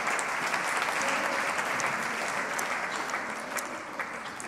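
Congregation applauding, the clapping slowly dying away toward the end.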